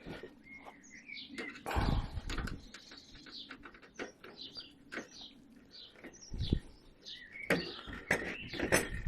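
Small birds chirping in short high calls throughout, with scattered clicks and a few knocks of small metal parts being handled as a screw and nut are tightened on the stove.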